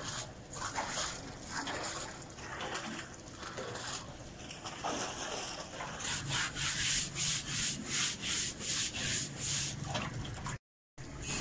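A stiff brush scrubbing the inside concrete walls of a water tank lathered with washing powder. Irregular scraping at first, then from about six seconds in quick, even back-and-forth strokes, about three a second; the sound drops out for a moment near the end.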